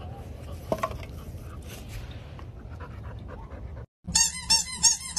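A dog panting with noisy breathing. After a brief cut to silence near the end, a pit bull-type dog gives a rapid run of high-pitched whines, about six a second.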